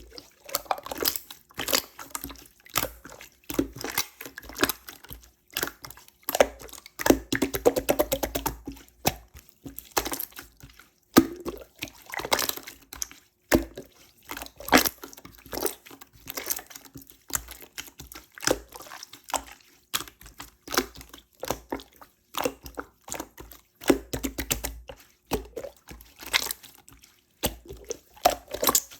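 Slime being squished and pressed by hand: a steady run of irregular wet clicks and pops, several a second.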